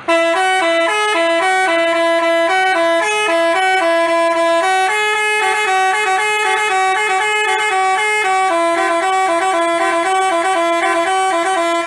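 Basuri telolet multi-tone bus horn playing a quick, stepping melody of steady horn notes, starting suddenly and cutting off near the end.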